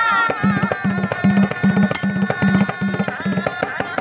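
Hand-played dhol drums of a Dhangari ovi folk group playing a fast rhythm: deep booming strokes about three a second with sharper slaps between them, under a man's singing voice.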